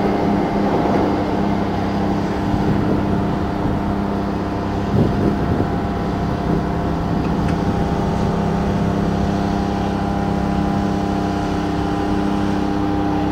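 Railroad crossing bell ringing steadily while the crossing signals are active, its rapid strikes blending into a continuous ring.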